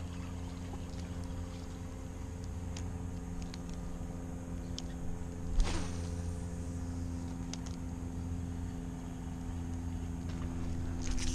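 A steady low mechanical hum made of several unchanging tones, with faint scattered clicks and one short, louder sound a little past halfway.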